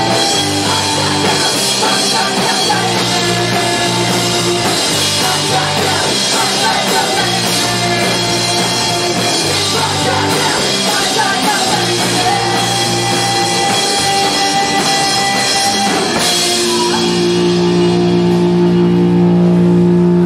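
Punk band playing live: distorted electric guitar, electric bass and drum kit with vocals. About sixteen seconds in the drums stop and a held chord rings on steadily to close the song.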